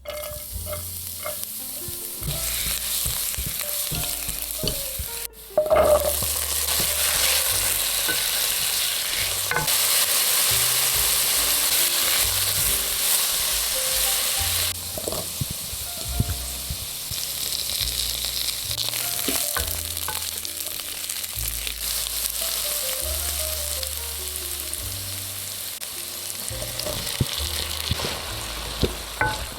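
Chicken and potatoes sizzling in a hot pan as they are stir-fried and stirred. The sizzle jumps suddenly louder about five seconds in.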